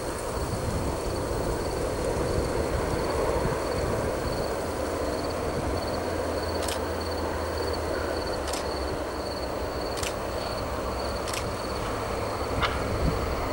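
Cessna 182Q Skylane's piston engine and propeller running at low power at a distance while it lands, under a rumble of wind on the microphone. A thin steady high whine runs throughout, and five sharp clicks come in the second half.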